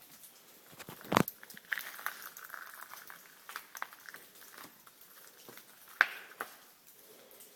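Footsteps crunching and scraping on the loose rock floor of a lava tube, with two sharper knocks of rock, one about a second in and one about six seconds in.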